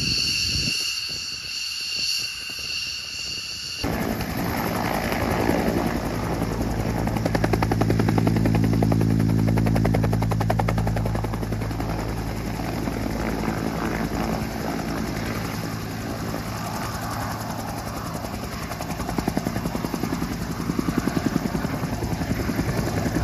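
A steady high whine, then about four seconds in, military helicopter rotors chopping in a fast, even beat over a low engine hum as the helicopters hover low.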